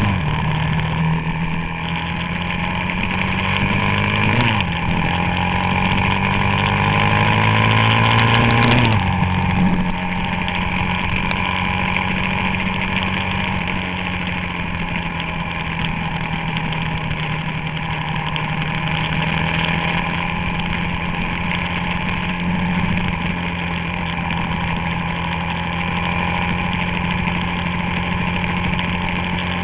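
Suzuki DR-Z400SM's single-cylinder four-stroke engine accelerating through the gears, its pitch rising and then dropping at three upshifts, the last about nine seconds in. After that it holds a steady note at cruising speed.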